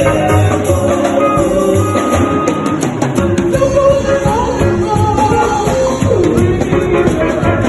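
Church worship music: voices singing a melody over a steady drum beat with rhythmic jingling hand percussion.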